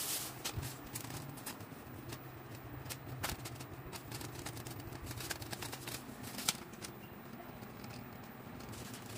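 Scattered clicks and plastic rustles of hands unwrapping a ring light from its plastic bag and handling a tripod light stand, with a sharper knock about six and a half seconds in. A low steady hum runs underneath.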